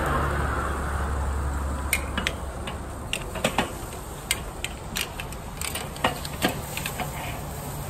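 Metal tongs clicking and clinking against the grate and skewers of a charcoal kettle grill as barbecue skewers are turned: irregular sharp clicks from about two seconds in.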